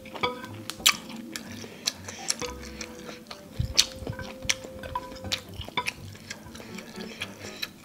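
Close-miked eating: wet clicks and smacks of chewing, scattered irregularly, over soft sustained notes of background music.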